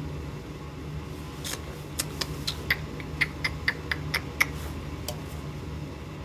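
A run of about fourteen light, sharp clicks, roughly four a second, starting about a second and a half in and stopping near the end, over a steady low hum.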